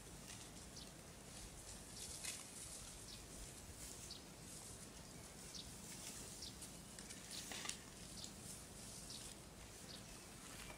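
Faint outdoor ambience of a grazing water buffalo calf: a few soft crisp crunches of grass being torn, the clearest about two and seven and a half seconds in, over short high bird chirps scattered throughout.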